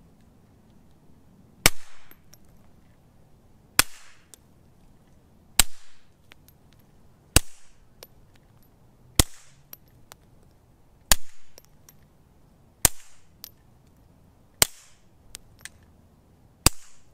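Nine suppressed shots from a Taurus TX22 .22 LR pistol, about one every two seconds. The string is a first-round discard, two Federal High Velocity supersonic rounds, then pairs of Norma Subsonic, Winchester 42 Max subsonic and CCI Quiet Semi-Auto. Faint ticks come between the shots.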